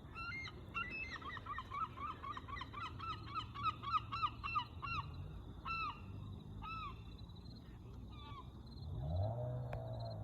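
A gull calling overhead: a fast run of short, repeated yelping notes that slows after about five seconds to a few spaced calls.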